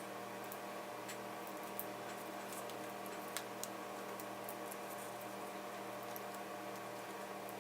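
Scattered faint light clicks and ticks of small tools and parts being handled inside an opened laptop during repair, a few slightly sharper ones about two and three and a half seconds in, over a steady electrical hum.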